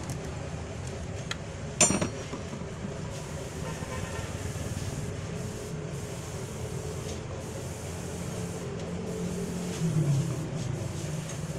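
Honda City four-cylinder petrol engine idling steadily, with a sharp click or knock about two seconds in and a brief louder swell near the end.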